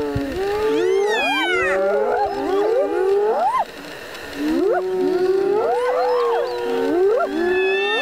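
A pack of spotted hyenas calling over one another: many overlapping rising whoops and wavering cries, dropping away briefly about three and a half seconds in.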